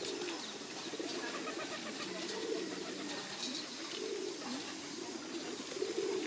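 A flock of feral pigeons cooing, many low coos overlapping continuously.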